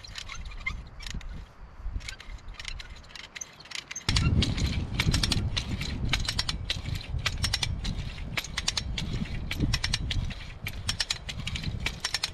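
Hand-operated come-along (ratchet cable puller) being pumped, its ratchet pawl clicking rapidly as the cable winches in and tensions a tree-felling rope. The clicking starts about four seconds in, over a low rumble, after a few seconds of quieter rope handling.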